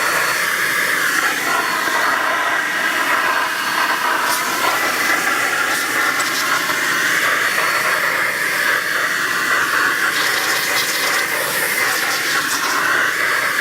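An air duster blowing a steady, loud hissing stream of air into an open laptop to clear out dust.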